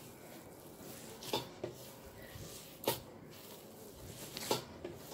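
Dough being kneaded by hand on a wooden tabletop: four short, soft thumps as it is pressed and turned.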